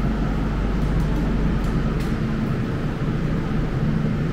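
Steady low hum of a standing DB Class 423 S-Bahn electric multiple unit, its onboard equipment running while it waits at the platform of an underground station.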